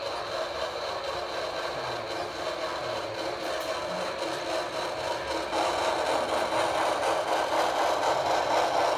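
Model steam train running on the layout track: a steady whirring rumble of motor and wheels that grows louder a little past halfway as the Pennsylvania Railroad locomotive approaches.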